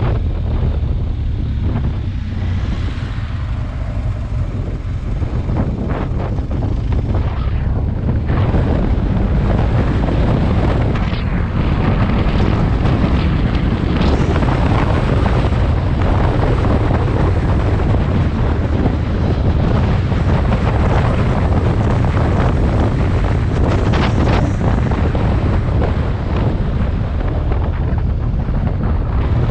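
Adventure-touring motorcycle engine running under way, with wind noise on the onboard microphone; it grows a little louder about eight seconds in.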